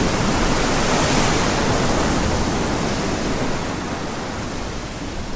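Ocean surf: a steady rush of waves washing in, fullest about a second in and slowly easing off over the second half.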